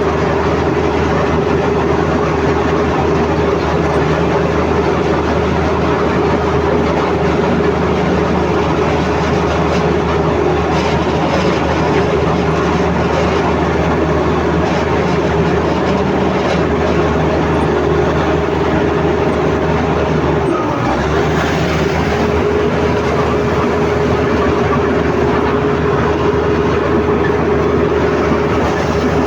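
Komatsu D85ESS crawler bulldozer working: diesel engine running under load with a steady whine and the clatter of its steel tracks. The engine note dips briefly about three-quarters of the way through, then picks up again.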